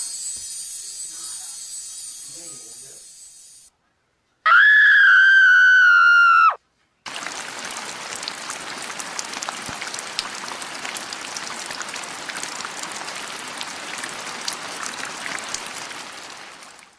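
A run of separate sound effects: a high hiss for a few seconds, then a loud high-pitched held cry for about two seconds that sags slightly and cuts off, then about ten seconds of steady crackling, rushing noise like running water.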